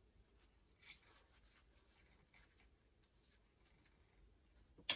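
Faint rubbing and rustling of Silbon lens-cleaning paper, damp with anhydrous ethanol, wiping the rear glass of a lens. A single sharp click near the end.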